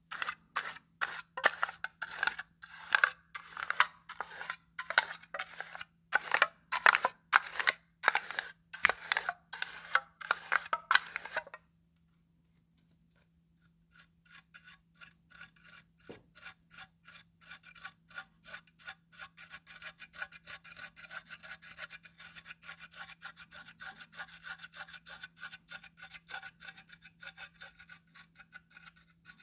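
Comb teeth rasping across a sheet of calendar paper in quick repeated strokes, each a rapid run of fine clicks. After a pause of about two seconds near the middle, the strokes come faster and brighter.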